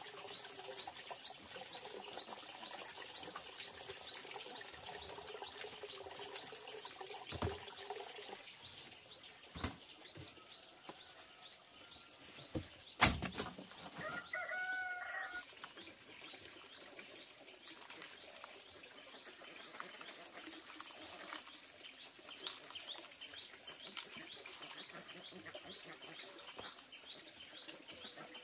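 A few sharp knocks, the loudest about halfway through, then a short call from a hen, with faint chirping through the second half.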